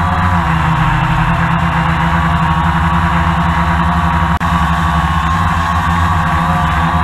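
Multirotor drone's motors and propellers running steadily, a loud hum held at several fixed pitches, heard from the camera on the drone itself. The sound drops out for an instant about four seconds in.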